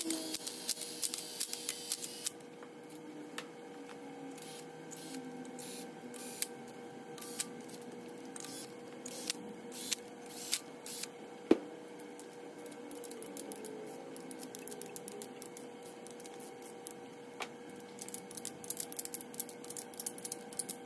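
A cordless power tool runs the main bearing cap bolts down on an LS engine block for about two seconds, with a dense buzz and clicking. Scattered clicks and knocks of tools and sockets on the cast-iron block follow, with one sharp knock midway. Near the end a hand wrench clicks as it ratchets over the cap bolts during the first stage of tightening. A faint steady hum runs underneath.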